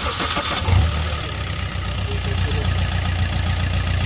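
Maruti Suzuki Swift diesel engine idling steadily, with a brief louder surge in the first second. It runs without the earlier khad-khad timing-chain rattle now that the timing kit is new, and its silencer is not yet fitted.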